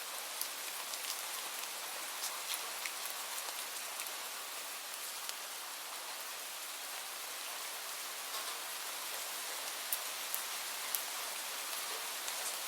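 Light rain falling steadily: an even hiss with scattered individual drops ticking close by, a few louder drops near the end.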